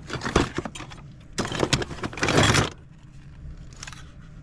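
Plastic and metal toy vehicles clattering and knocking together as they are rummaged through and lifted out of a cardboard box. There is a louder rattling scrape about two seconds in.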